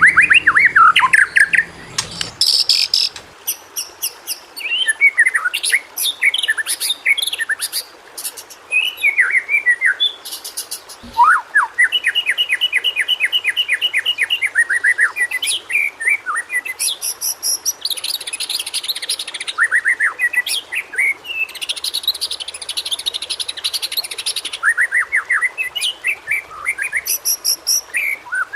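White-rumped shama (murai batu) singing a long, varied song: fast runs of repeated down-sweeping whistled notes, rapid trills and high sharp notes, with only short pauses.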